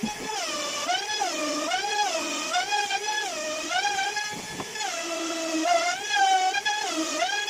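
Handheld electric trim router running and cutting a groove into a wooden door panel, a high motor whine whose pitch dips and recovers over and over, about once or twice a second, as the bit bites into the wood under the push of each stroke.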